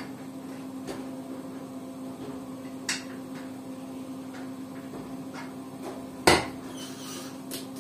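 Light clicks and knocks of plastic stacking-kit rails and a cordless drill being handled on a washing machine's steel top, with one sharp, loud knock about six seconds in. A steady low hum runs underneath.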